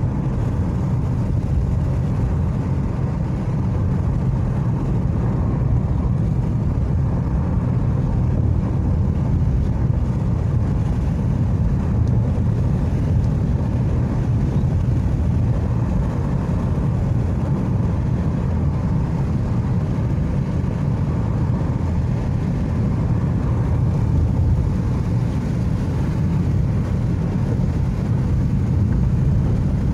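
Car driving on worn, patched asphalt, heard from inside the cabin: a steady low rumble of tyres and running gear.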